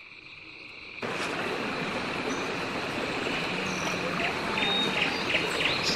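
Outdoor nature ambience: frogs croaking with a steady high insect trill, over a constant rushing haze that swells suddenly about a second in. Short chirps come through in the second half.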